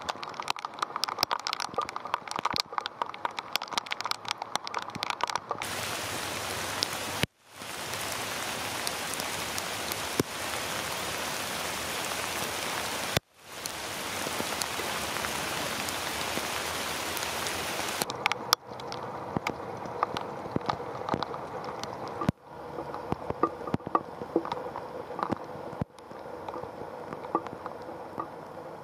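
Heavy rain, recorded on a camera's built-in microphone out in the downpour. Dense pattering drops turn about six seconds in to an even, full hiss for roughly twelve seconds, then back to pattering with separate drops; the sound changes abruptly at several cuts.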